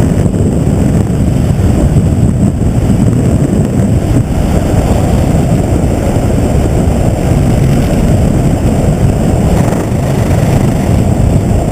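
Helicopter running: a loud, steady low rumble that does not let up.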